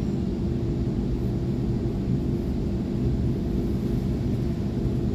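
Electric suburban train running at a station platform: a steady low rumble with a constant hum over it.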